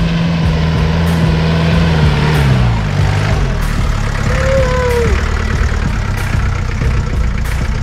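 Engine of a Willys-style off-road jeep pulling up a steep dirt slope close by, a steady note that drops in pitch about two to three seconds in.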